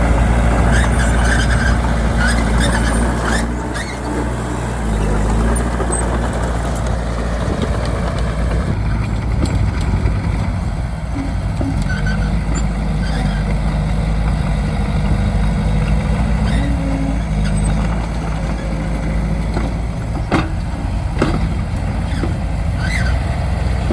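Bulldozer's diesel engine running steadily under work, its note shifting a few seconds in, with a few faint knocks.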